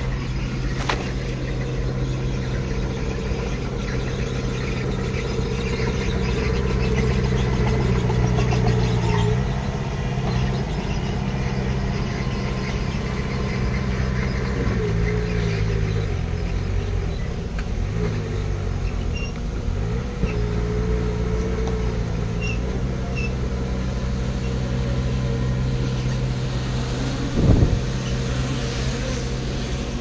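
Diesel engine of heavy earthmoving machinery running under load, its pitch dipping and rising a few times around the middle, with a single loud knock near the end.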